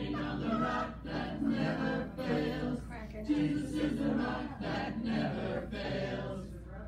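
Several voices singing a song together, dropping off shortly before the end.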